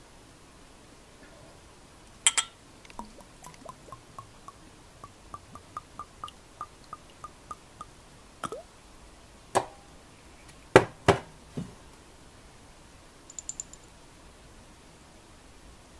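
Whisky poured from a glass bottle of Kirin Fuji-Sanroku into a small glass. A sharp click comes first, then a run of evenly spaced light ticks, a short gurgling pour, several knocks as bottle and glass meet the table, and a faint glassy clink near the end.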